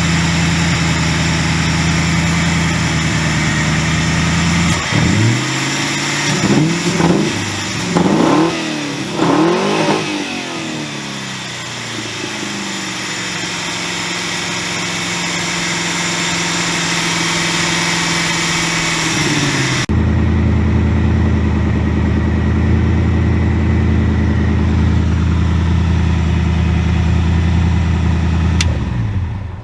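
Ford DOHC four-valve V8 idling steadily, then several quick throttle blips that rise and fall before it settles back to idle; it runs on new coil packs and a freshly fitted cold air intake and revs cleanly. Near the end the engine sound drops away.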